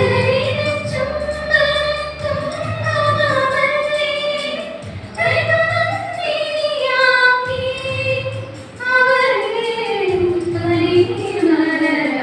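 High voices singing a slow song in long held notes, the tune sinking lower near the end, over a low pulsing accompaniment.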